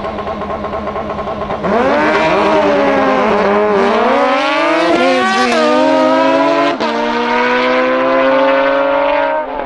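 Two sport motorcycles held at high revs on the drag strip start line, then launching at full throttle about one and a half seconds in. The engine note jumps louder and its pitch climbs, drops and climbs again as they shift up through the gears, then runs steadier near the end.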